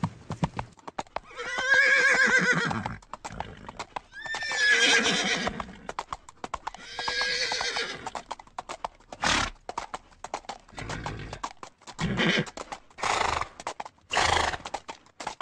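A horse whinnying three times, each call about a second and a half long with a wavering pitch, over a rapid clatter of hoofbeats. Several shorter noisy bursts follow in the second half.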